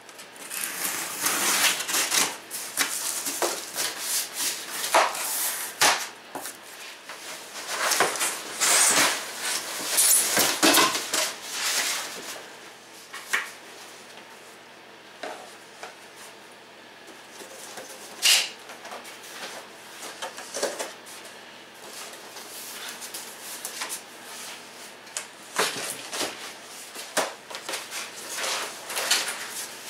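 Cardboard shipping boxes being unpacked by hand: flaps and packing pieces scraping and rustling, and smaller boxes knocking as they are lifted out and set down, at irregular intervals with quieter pauses. One sharp knock stands out midway.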